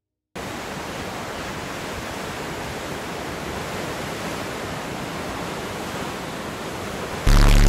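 Steady rushing wind and sea noise on a phone's microphone aboard a boat on choppy water. Just before the end it gives way abruptly to a much louder sound with a deep steady hum.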